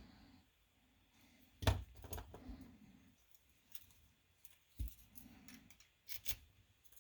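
Small metal clicks and knocks from handling a pin-tumbler lock and its tools, with a sharper knock about two seconds in, another near five seconds, and a quick pair near the end.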